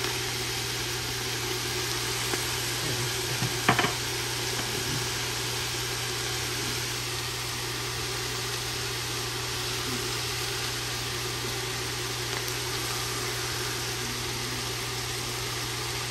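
Steady sizzling hiss of kale sautéing in olive oil in a large enamel pot, over a constant low hum. A few light knocks sound about three to four seconds in.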